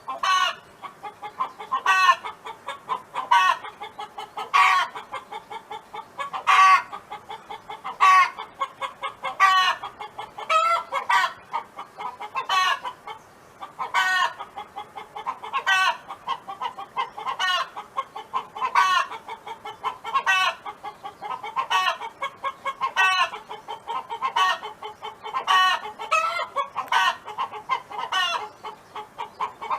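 A hen clucking in repeated phrases: runs of short, quick clucks, each building to a louder, longer note, recurring every second or two without a break.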